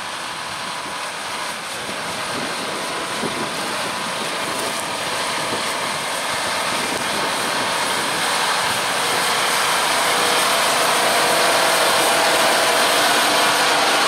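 John Deere 6250R tractor's six-cylinder diesel engine running steadily under load while pulling a seven-furrow plough through the soil. It grows steadily louder as the tractor approaches.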